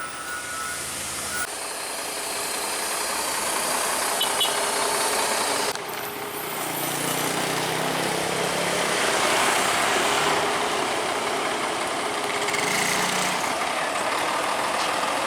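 Heavy truck engine running with road noise, swelling in loudness; the sound changes abruptly about a second and a half in and again near six seconds in.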